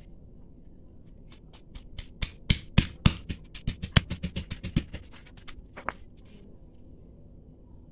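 Stone pestle pounding lemongrass and shallots in a stone mortar. The sharp knocks start about a second and a half in and come several a second for about three seconds, then two more follow after a short pause.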